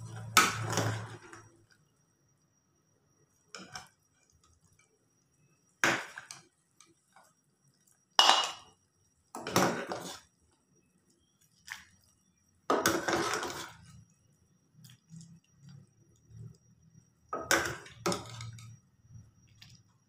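Metal ladle scraping and knocking against the inside of a pressure cooker pot as chicken soup is ladled out, in a series of separate strokes every couple of seconds.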